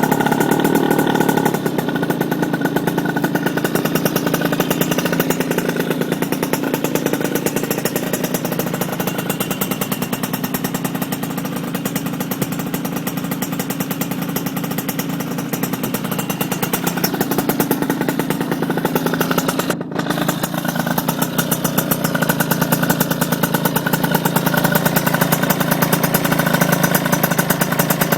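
Small 80cc RS motorcycle engine idling steadily with a fast, even exhaust pulse. It carries the sound of an exhaust leak.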